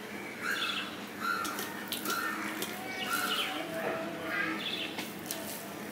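Rice and prawn curry being squished and mixed by hand on a steel plate, with soft clicks, while birds chirp in the background in short calls repeated every half second to a second.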